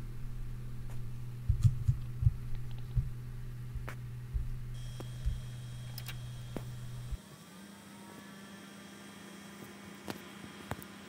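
Desktop PC running after boot: the steady hum of its fans and the Corsair H100i v2 liquid cooler, with a few knocks in the first few seconds. The low hum stops abruptly about seven seconds in, leaving a quieter, even whir with a thin high whine.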